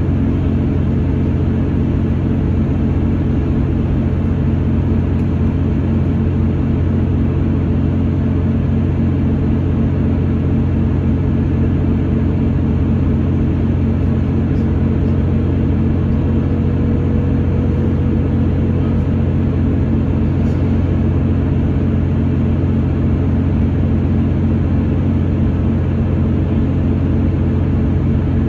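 Cabin noise inside a Class 159 Sprinter diesel multiple unit running at speed: a steady drone from its underfloor diesel engine over the rumble of wheels on rail.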